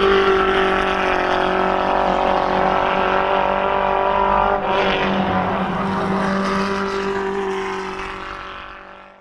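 Formula F1600 single-seater race car engine running at high, steady revs, with a brief dip about halfway through, then fading out near the end.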